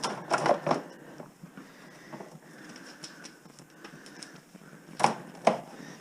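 Clicks and knocks of copper wire and hand tools being handled while wire is stripped out of a gutted wall: a quick cluster of knocks in the first second, then two sharp clicks about five seconds in.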